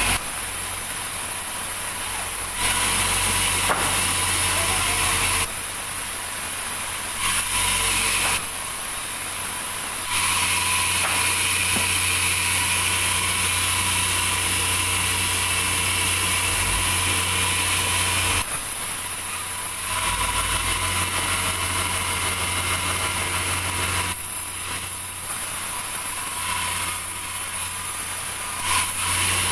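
Sawmill machinery running steadily, a low engine hum with a high whine above it; the level and tone jump abruptly several times.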